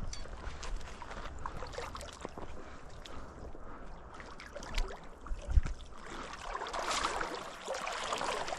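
River water splashing and swirling, growing louder near the end, with a few low bumps around the middle. The splashing comes from a hooked brown trout being played in the shallows.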